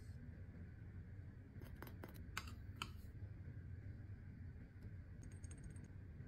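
Steady low hum of room tone with a handful of sharp small clicks about two seconds in, then a quick run of faint ticks near the end.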